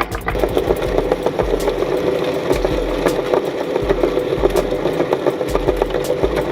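Electric meat grinder motor running steadily under load, with a dense crackle of sharp clicks, typical of it crushing oysters.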